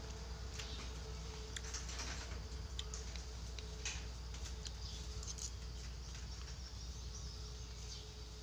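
Quiet eating sounds: scattered small clicks of a metal spoon against a ceramic bowl, and chewing, over a steady low background hum.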